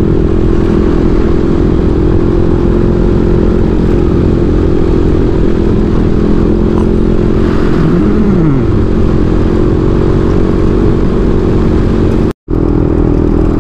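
Motorcycle engine running steadily while cruising, with heavy wind and road noise. About eight seconds in, a pitch rises and falls briefly. Near the end the sound cuts out completely for a moment.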